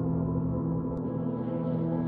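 Background film-score music: an ambient drone of several steady tones held without a break, with a ringing, gong-like quality.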